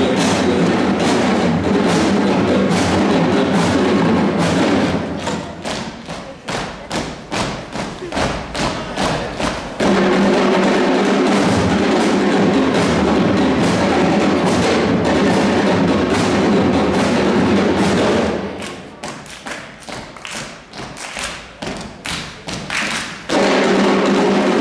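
Carnival charanga band playing live on stage: full band sections alternate with two stretches of drums playing alone, the first starting about five seconds in and the second past the middle, each lasting about five seconds before the full band comes back in.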